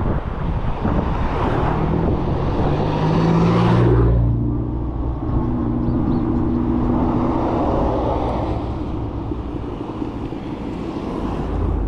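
Wind and road noise rush over the microphone while riding, then drop away about four seconds in as the bike slows. A car engine then runs close by with a steady low hum.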